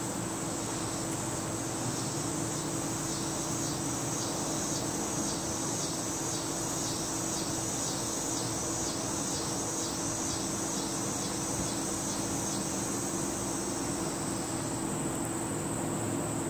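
Insects chirping: a steady high-pitched trill, with a second insect pulsing in a regular rhythm about twice a second that turns to a steady buzz near the end, over a steady low hum.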